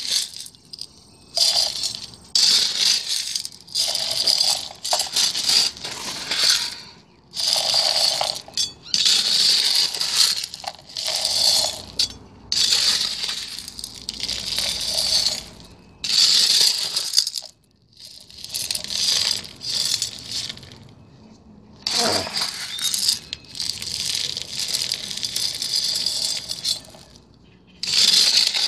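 Small gravel being scooped with a metal scoop and poured onto a toy. It comes as a series of short pours, a dozen or so, with brief pauses between them.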